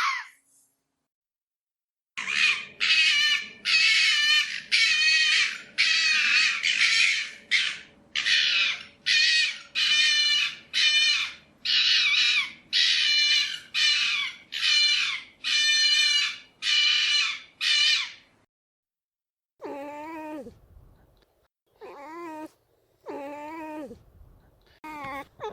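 Red fox calling: a long, even series of about twenty short, high barks with a wavering pitch, followed after a pause by several lower, wavering calls.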